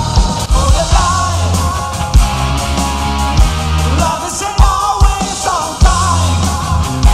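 Rock band playing with distorted electric guitars, bass and drums, the kick drum hitting in a steady beat under a bending melody line.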